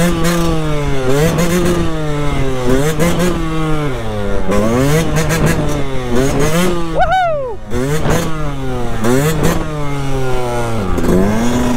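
Yamaha YZ125 two-stroke motocross bike being ridden, its engine revving up and dropping back again and again, roughly once a second.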